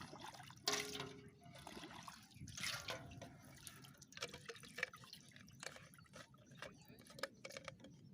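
Faint water dripping and small splashes in a quick, irregular run of ticks, with one slightly louder splash about a second in.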